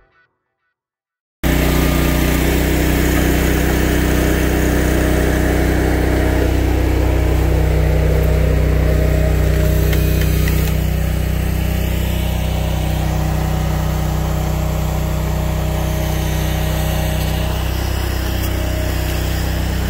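Small engine of a log splitter running steadily, cutting in abruptly about a second and a half in after a brief silence.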